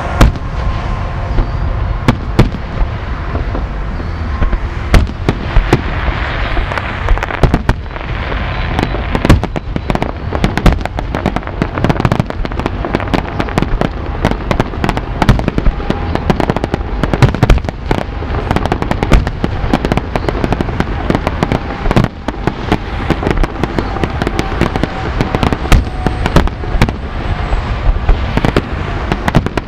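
Aerial fireworks display going off in a dense, continuous barrage: many sharp bangs and pops overlapping with crackle, several a second.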